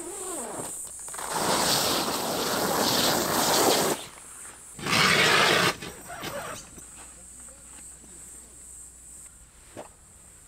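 Heavy tent fabric rustling and swishing as the door panel of an inflatable air tent is pulled open, in a long spell and then a short one a second later. After that it falls much quieter, with a few faint clicks.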